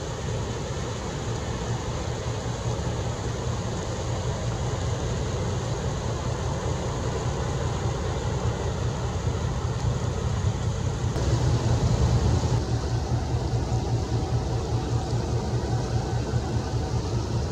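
Diesel engine of a passing general cargo ship, a low, steady, rhythmic throb that swells to its loudest about twelve seconds in, over a constant hiss.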